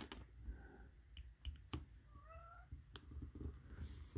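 A domestic cat meowing faintly: a short call about two seconds in, with a weaker one shortly after the start. Small sharp clicks of a metal pick working a pin into a plastic doll leg come in between.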